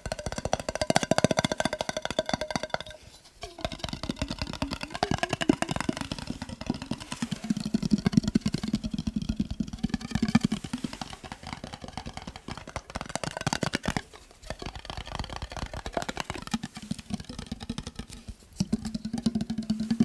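Fast tapping on a glass mason jar: a dense stream of quick taps with the jar ringing under them, stopping briefly a few times.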